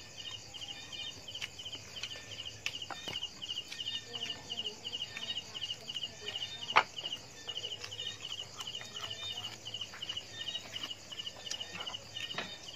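Crickets chirping steadily, about three high-pitched pulsed chirps a second. Faint scattered clicks sound over them, and one sharp click comes about halfway through.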